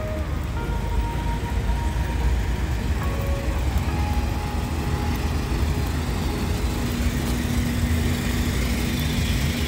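Steady low rumble of city street traffic, with faint held tones over it.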